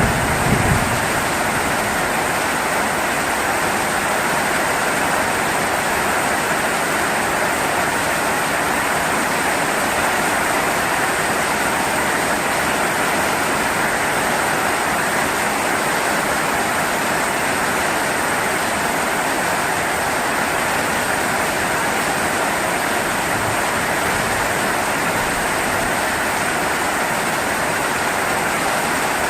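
Heavy rain falling in a steady, unbroken downpour. A low rumble dies away in the first second.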